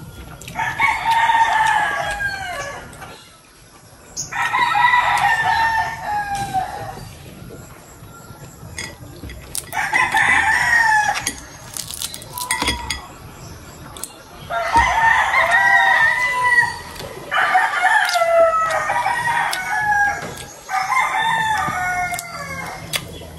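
A rooster crowing over and over: about six long crows a few seconds apart, each one falling in pitch at its end. A few faint clicks from food being handled come in between the crows.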